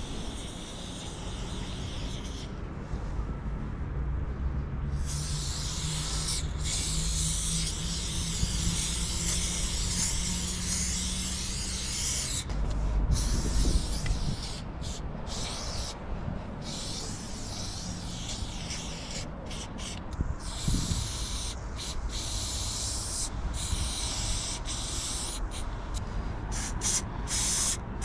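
Aerosol spray-paint can hissing as paint goes onto a concrete wall: one long continuous spray of several seconds in the first half, then a run of short bursts with brief stops between them.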